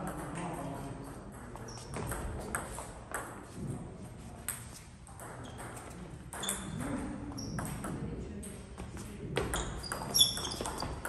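Table tennis ball clicking off paddles and table: scattered single clicks, then a quick run of hits in a rally near the end.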